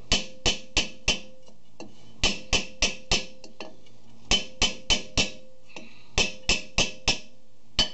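Light hammer taps on the 1997 Chevy Astro van's cast-metal rear brake drum, in four quick runs of four taps at about three a second, each tap ringing briefly with a metallic tone. The rapping is meant to break loose the rust that has seized the drum so it can be pulled off.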